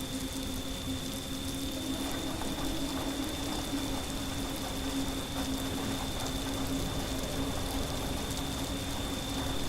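Steady rain ambience, an even hiss of falling rain over a low rumble, with a constant low hum and a faint high thin tone running underneath.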